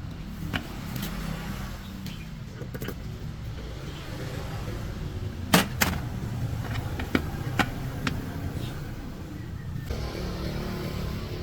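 A vehicle engine running steadily with a low rumble, with several sharp knocks over it, the loudest about five and a half seconds in.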